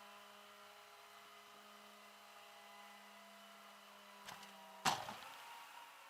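Steady low hum with a faint whine, then a light click and a loud sharp clack about five seconds in, after which the hum's low tone stops.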